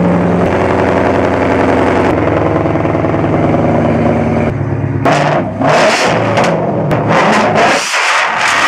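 Ford Mustang GT's V8 idling steadily at the exhaust, then revved in several quick blips over the last few seconds.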